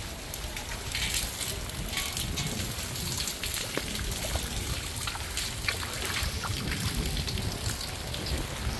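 Rough sea at high tide washing up the beach: a steady rush of water with small sharp splashes throughout.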